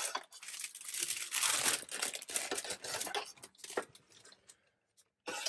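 Plastic cereal bag crinkling and rustling as it is handled, for about three seconds, followed by a few light clicks.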